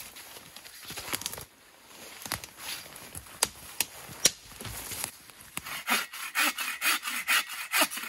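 Hand saw cutting a dead branch in quick back-and-forth strokes, about three a second, starting a little past halfway; before it, scattered rustles and sharp twig snaps.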